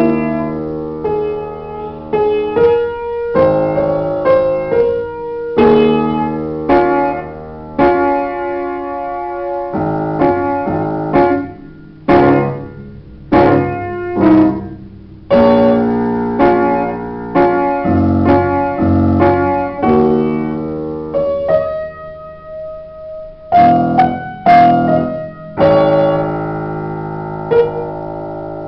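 Upright piano played solo: a melody over struck chords, with a sparser, quieter stretch of a few held notes a little after two-thirds of the way through.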